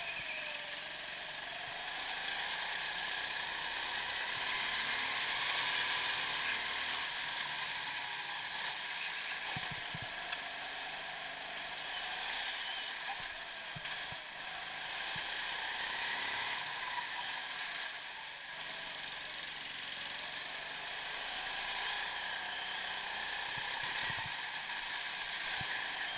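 Go-kart running laps, its motor note rising and falling through the corners, with steady rattling from the kart and a few sharp clicks.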